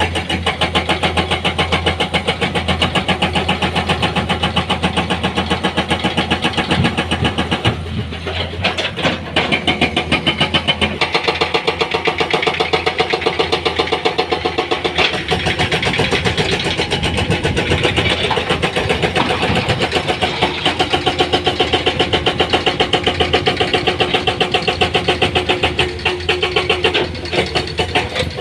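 Heavy-equipment diesel engine running loudly with a steady, rapid rhythmic pulse.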